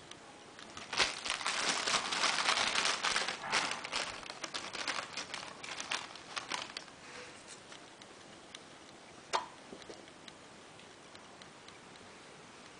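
A bag crinkling and rustling as it is handled, densest for about three seconds after the first second, then thinning into scattered crackles and clicks, with one sharper click about nine seconds in.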